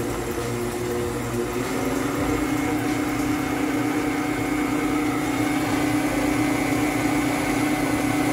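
West Bend stand mixer's motor running at a steady hum, its beater whisking eggs, milk and oil in a stainless steel bowl.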